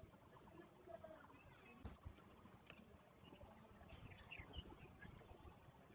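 Near silence: room tone with a steady high-pitched whine, and a single soft knock about two seconds in.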